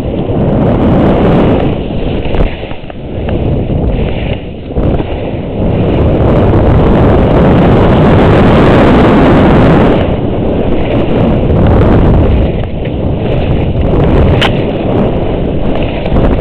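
Strong wind buffeting the microphone during a fast downhill run through snow-covered forest, with the rush of the snow under the rider mixed in. It swells loudest in the middle and falls back a little after about ten seconds. There is one sharp click near the end.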